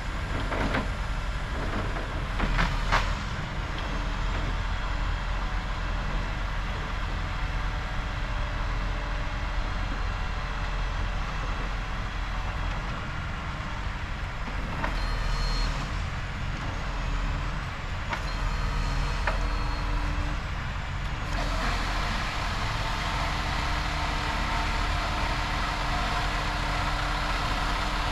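Engine of a truck-mounted knuckle-boom grapple saw running steadily with a constant hum, with a few sharp knocks in the first few seconds. The sound grows fuller about three quarters of the way through.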